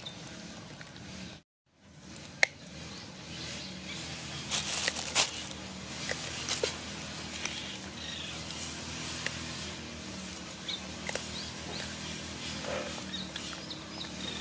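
Kittens and a macaque eating fish: scattered small clicks and chewing noises over a steady outdoor background hum. The sound drops out completely for a moment about one and a half seconds in.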